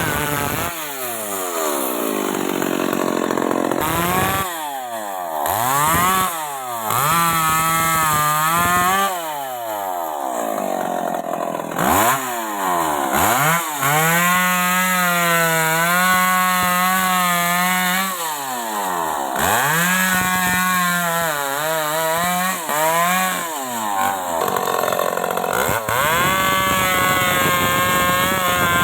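Stihl MS 381 two-stroke chainsaw being worked in wood. The engine revs up and drops back over and over, its pitch sweeping up and down, with a longer steady run at high speed about halfway through.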